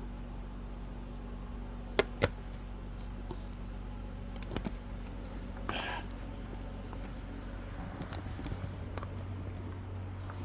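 Handling noise while unpacking and sorting parts: two sharp clicks in quick succession about two seconds in, then brief rustles and light knocks. A steady low hum runs underneath.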